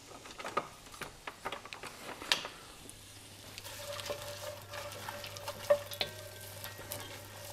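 Chopped onion sizzling in hot oil in an enamelled cast-iron pot, stirred with a wooden spoon that taps and scrapes against the pot in short, irregular clicks.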